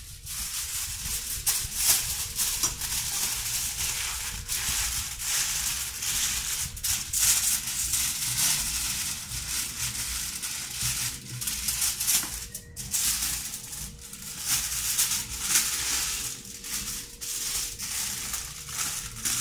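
Aluminium foil crinkling and rustling as sheets are unfolded, joined and folded by hand into a parcel, in irregular crackles, with a faint steady hum beneath.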